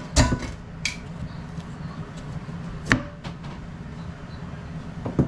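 Kitchen knife knocking on a plastic cutting board a few times, irregularly, as a carrot is cut by hand.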